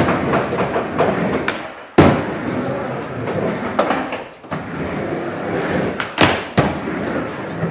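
Skateboard wheels rolling across a mini ramp, with sharp clacks of the board and trucks striking the metal coping: one about two seconds in and a quick pair near the end.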